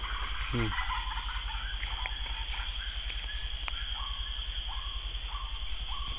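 Crickets and other night insects shrilling steadily. A brief falling cry sounds about half a second in, and from about a second in a short call repeats about twice a second.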